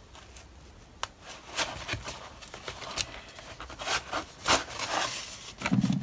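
Rustling and scraping of paper and cloth as the signatures of a hand-sewn journal are handled and turned over, with thread drawn through the sewing holes. Short, scattered rustles after about a second of near quiet.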